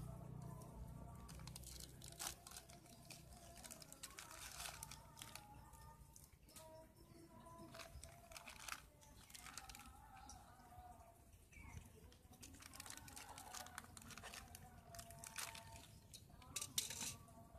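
Faint crinkling and rustling of a thin plastic fish bag being handled and cut open, with a louder crinkle near the end.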